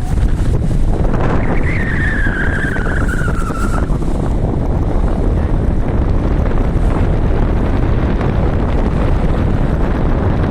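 Wind buffeting the microphone aboard a river ship: a loud, steady rushing noise. About a second and a half in, a high tone slides slowly downward for about two seconds and fades.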